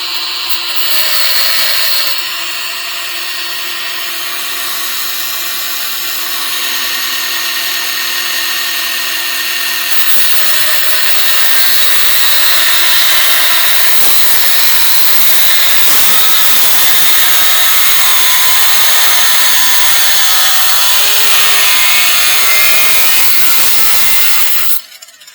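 Aldi Ferrex 40-volt cordless angle grinder running with a steady motor whine, then from about ten seconds in a harsh grinding noise as the disc cuts through the threaded end of a steel coach screw; it stops just before the end.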